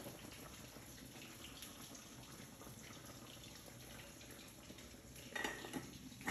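Faint kitchen clatter: a few quick knocks, then a sharp clink with a short ring, as the metal lid of an electric rice cooker is handled.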